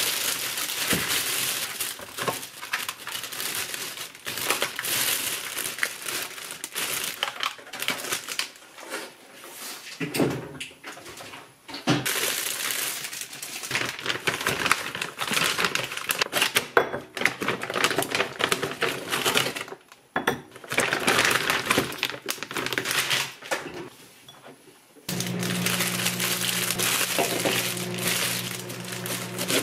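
Plastic shopping bags rustling and crinkling in irregular bursts as groceries are taken out and set down, ending with a thin plastic produce bag around a head of lettuce being handled. A steady low hum comes in about 25 seconds in and carries on under the rustling.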